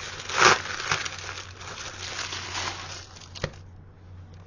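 Crinkly wrapping around folded cloth maps being handled and pulled open, loudest about half a second in. A sharp click comes near the end, then the rustling dies down.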